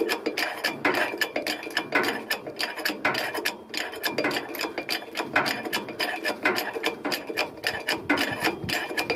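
Hand-pumped 20-ton hydraulic bottle jack being worked, its steel handle clicking and clinking over and over, stroke after stroke, as it lifts the truck's axle.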